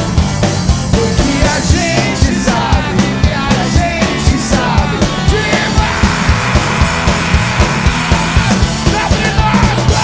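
Rock band playing live: drums keep a fast, steady beat under loud guitars, with shouted vocals in the first half and again near the end.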